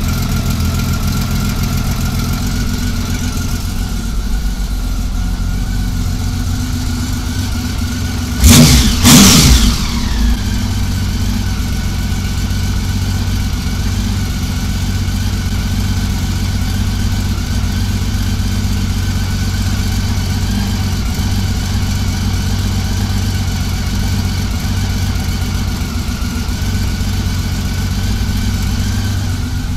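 Honda Valkyrie's flat-six engine idling steadily on the bench during carburetor synchronisation. About eight seconds in there is a loud burst lasting a second or two, after which the engine's pitch falls back to idle.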